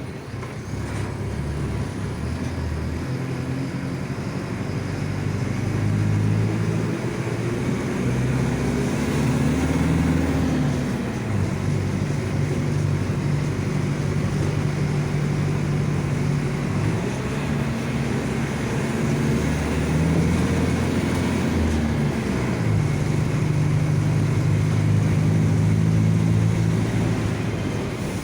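Mercedes-Benz OF-1722M bus under way, its diesel engine climbing in pitch as it pulls, dropping about a third of the way through, rising and falling again past the middle, then running steady. Through it runs the growl of the bus's differential.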